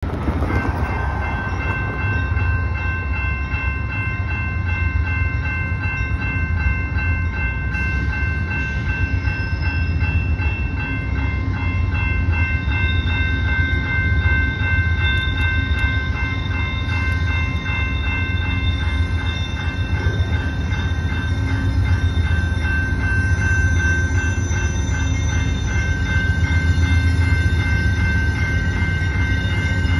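Railroad grade-crossing bell ringing without a break, over the low rumble of an approaching Amtrak diesel passenger locomotive.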